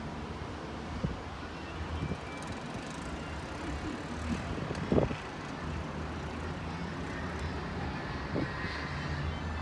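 Steady low rumble of distant vehicle traffic carrying up to a high balcony, with a few soft knocks and one louder thump about five seconds in.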